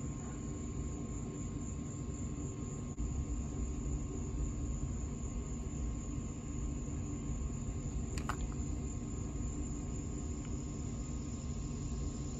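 Steady low background rumble with a faint steady high tone running through it, and a brief faint ring about eight seconds in.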